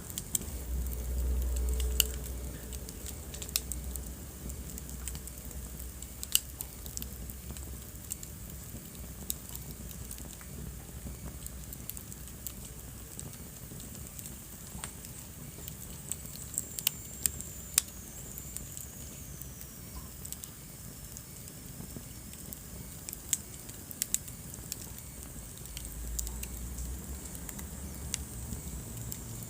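Wood fire burning in a fireplace: a low steady rumble of the flames with scattered sharp crackles and pops. Partway through, a faint high whistle slowly falls in pitch.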